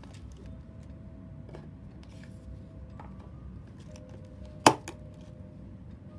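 Handling of stationery on a desk: a few small clicks and taps, with one sharp click about two-thirds of the way through followed by a lighter one.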